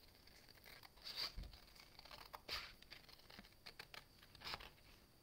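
Faint scissors snipping through cardstock in a few short cuts, with light paper handling between them.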